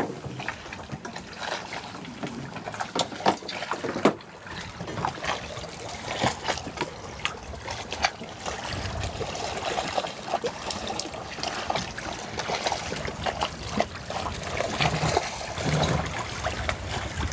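Water trickling and lapping along a sailboat's hull as it starts to make way under sail, with many irregular small splashes and knocks.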